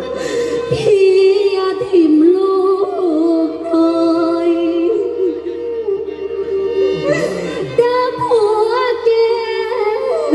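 Mor lam singing: a voice in a wavering, heavily ornamented melodic line over steady held instrumental notes.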